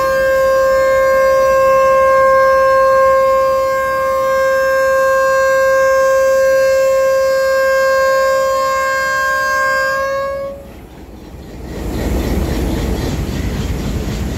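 A Pakistan Railways diesel locomotive sounds one long, steady horn blast of about ten seconds, the departure warning as the train prepares to leave, and the blast cuts off sharply. After a brief lull, a steady low rushing noise follows.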